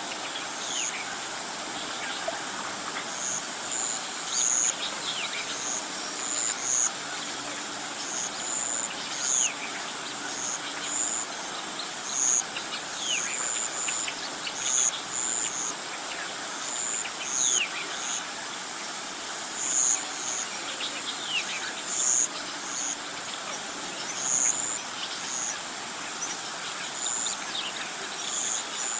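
Outdoor insect and bird chorus: short, high insect chirps repeat irregularly over a steady hiss, with thin bird whistles sliding downward in pitch every few seconds.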